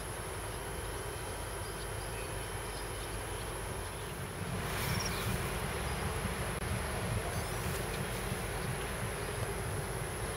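Steady high-pitched insect trilling in grass at dusk. About halfway through, a broad low rumble of wind or handling noise grows louder beneath it.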